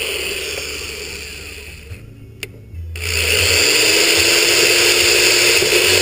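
Electric drill boring a pilot hole in a motorcycle tail section: it runs, winds down and stops about two seconds in, then starts up again a second later and runs steadily.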